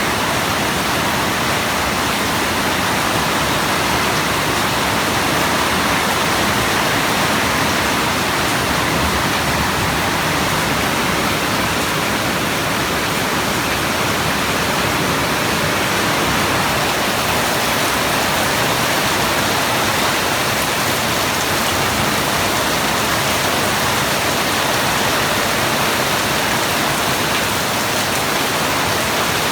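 Steady rain falling, a continuous even hiss with no separate drops standing out.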